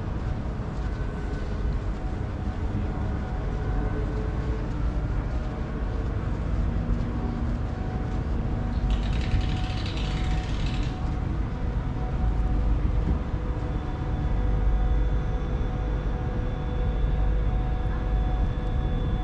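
Outdoor city ambience during a walk in snowfall: a steady low rumble with a few faint steady tones in it. A brief hiss stands out about nine seconds in and lasts around two seconds.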